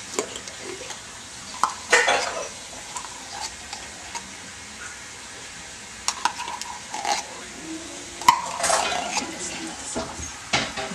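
A metal utensil scraping and clinking against the inside of a tin can as thick tomato paste is scooped out, in scattered short scrapes and clicks.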